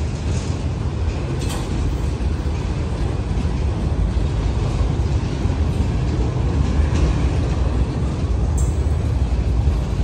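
Autorack freight cars rolling past: a steady rumble of steel wheels on rail, with a couple of faint clicks.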